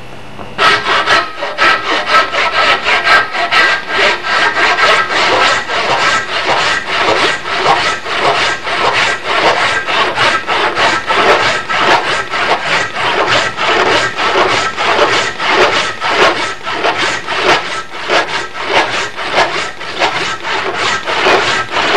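Hand saw cutting through the protruding end of a wooden axe handle in evenly paced back-and-forth strokes, about two a second, starting about half a second in. The end is being trimmed to stand proud of the axehead.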